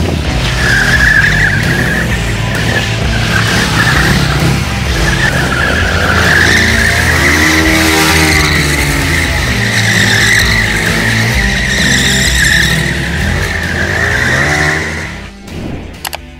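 A KTM Duke motorcycle drifting: the rear tyre squeals continuously as it slides sideways, while the engine revs rise and fall underneath, with music mixed in. The sound drops away abruptly about a second before the end.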